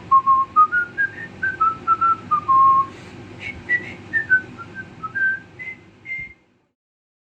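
A person whistling a light melody of short single notes over a faint steady hiss. It cuts off suddenly about six seconds in.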